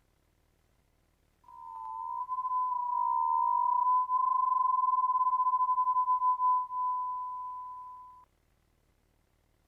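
Hearing-test tone: a single pure beep that fades in about a second and a half in, wavers slightly in pitch at first, then holds steady until it cuts off about eight seconds in.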